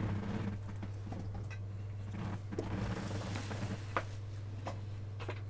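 A few light clicks and taps as a printed circuit board is handled and turned over on a wooden tabletop, over a steady low hum.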